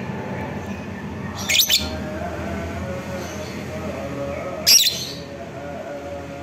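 A Fischer's lovebird giving short, shrill, piercing calls: a quick double call about a second and a half in, and a single one near five seconds. A faint steady tone lies in the background.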